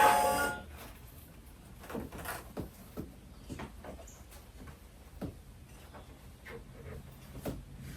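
A chiming tune, like glockenspiel or music-box notes, stops about half a second in. After that come faint, scattered knocks and clicks at uneven intervals.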